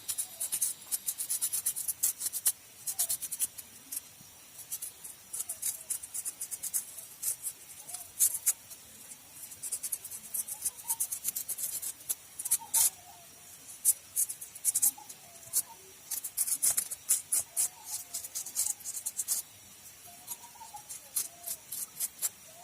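Carbon deposits being scrubbed off a Maruti 800 spark plug: many quick, irregular scratchy strokes.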